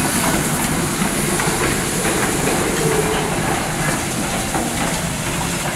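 CPR 2024 steam locomotive and a wooden passenger coach rolling past, their wheels clattering irregularly on the rails.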